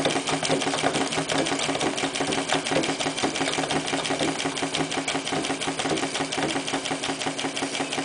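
Clarkson model inverted steam engine running steadily on steam, a fast, even clatter of exhaust beats. The exhaust is piped into the boiler's chimney, which amplifies it.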